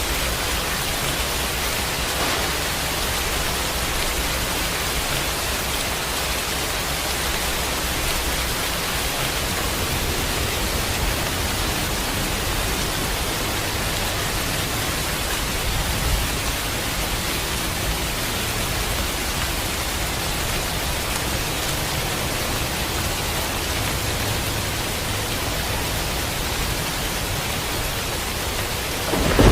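Steady rain, an even hiss with no separate drops standing out, and a deeper rumble of thunder starting right at the end.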